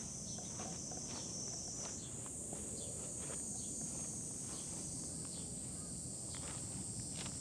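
A steady, high-pitched chorus of summer insects that shifts up in pitch about two seconds in and again about five seconds in, with light rustling and small ticks from a cat's paws moving over grass and dry leaves close by.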